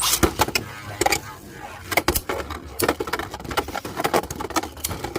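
Beyblade Burst spinning tops, one of them Divine Belial, clashing in a plastic stadium: a sudden loud start, then rapid, irregular sharp plastic clacks and knocks of hits over a whirring spin.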